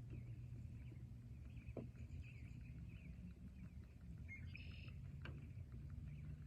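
Forest ambience: faint bird chirps over a low, steady rumble, with two sharp ticks about two and five seconds in.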